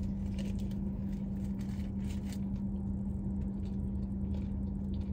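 Biting into and chewing a crispy fried chicken sandwich: a cluster of small crunches and clicks over the first couple of seconds, quieter chewing after, over a steady low hum.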